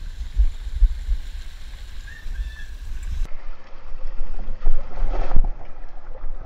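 Water running down a fibreglass water slide, with a low rumble on the head-mounted GoPro's microphone. About five seconds in, a louder rush of water as the rider starts down the chute.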